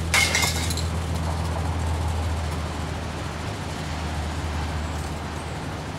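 A steady low engine hum from street traffic. About a quarter second in, a single sharp metallic clink rings briefly as spray-paint cans knock together.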